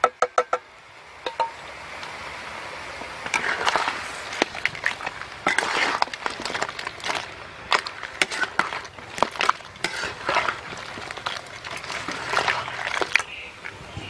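Metal spatula stirring crabs in a steel wok: irregular scraping, clinking and knocks of spatula and shells against the pan. A few rhythmic wood-block clicks of music end about half a second in.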